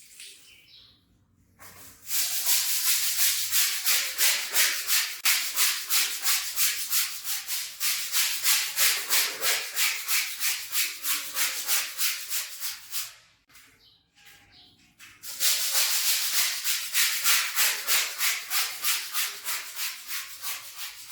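A stiff brush scrubbing a wet rug back and forth in quick, even strokes, about three or four a second. It runs in two long bouts with a short pause between them.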